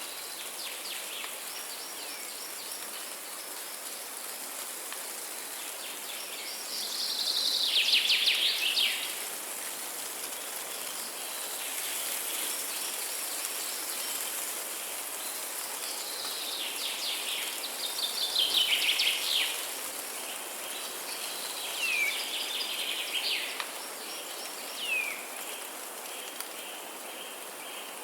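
Forest birds singing over a steady hiss of background ambience: twice a loud, rapid trill slides down in pitch, and between and after them come short downward-sliding whistled notes.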